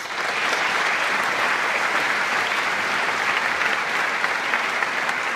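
A church congregation applauding: dense, steady clapping that starts abruptly and holds at an even level.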